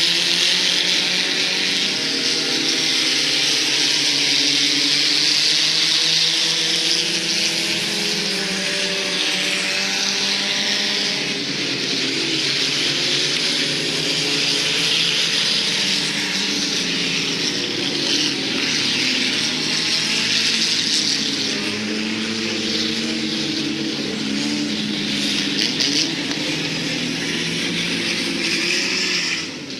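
Several four-cylinder sport compact race cars running on a dirt oval, their engines rising and falling in pitch as they lap and pass, over a steady hiss of tyres and exhaust.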